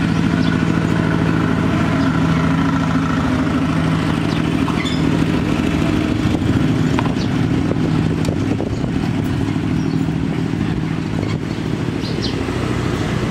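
A small engine running at a steady speed, its steady hum weakening in the second half.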